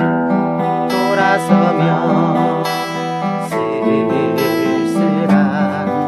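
Background music with guitar and a melody line that wavers with vibrato.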